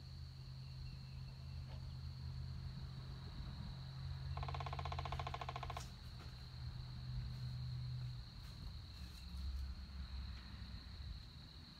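A woodpecker drumming: one rapid roll of taps lasting about a second and a half, a few seconds in. Under it runs a steady high-pitched whine and a low hum.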